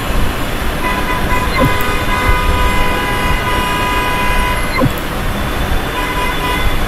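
A low, steady background rumble with a held horn-like tone of several pitches starting about a second in and lasting about four seconds, and a few sharp clicks.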